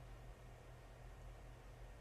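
Near silence: room tone with a faint steady low hum and light hiss.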